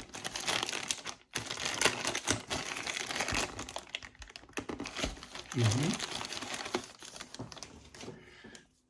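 Packaging being crinkled and rustled by hand as a parcel is opened, a dense run of irregular crackles, dying away near the end.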